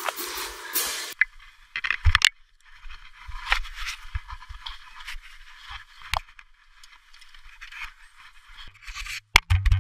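Scraping and rustling with scattered clicks and knocks, after a dense noisy passage that breaks off about a second in. A few loud heavy thumps come near the end, then the sound cuts off suddenly.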